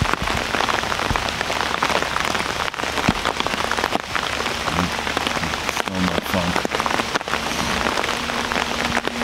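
Steady rain falling in the woods, an even hiss with many individual drops ticking close by.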